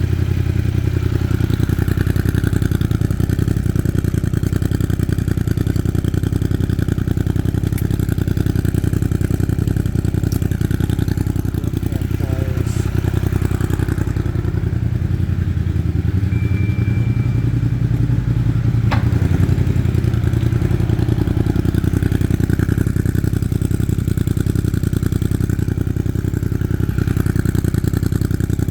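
Suzuki GSX-8S parallel-twin engine running steadily through an Arrow full-system exhaust.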